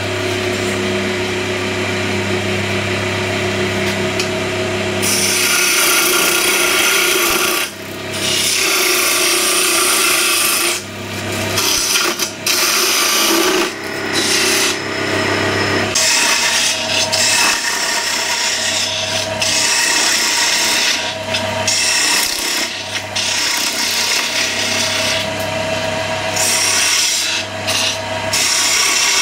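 Turning tool cutting into a spinning wooden blank on a wood lathe, shaping it into a tulip. Over a steady hum, the cutting hiss starts about five seconds in and comes in spells with short breaks as the tool is eased off and put back to the wood.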